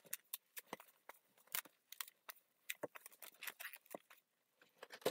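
Dark green 260 latex modelling balloon being twisted and wrapped by hand, giving scattered short, faint squeaks and rubbing sounds.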